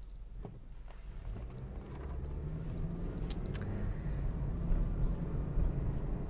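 Low rumble of a motor vehicle, growing steadily louder, with a few faint clicks.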